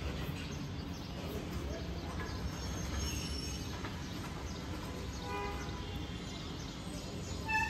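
Steady low background rumble, with a few short pitched tones about five seconds in and again near the end.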